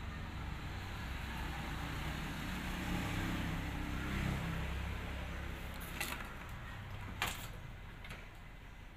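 A low, steady mechanical rumble that dies down near the end, with three short sharp clicks about a second apart, the middle one loudest.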